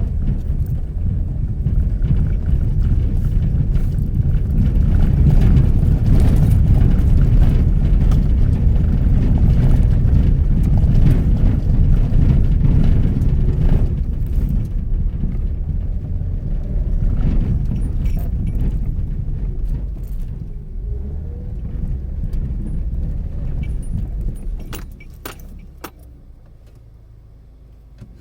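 Mitsubishi Pajero Mini being driven, a steady low road-and-engine rumble with scattered small rattles and clicks. About 24 seconds in, the rumble falls away sharply and leaves a much quieter background with a few sharp clicks.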